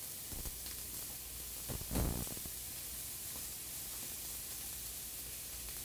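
Chopped red onions sizzling in oil in a frying pan over medium-high heat, stirred with a wooden spoon, a steady faint hiss. A brief thud about two seconds in.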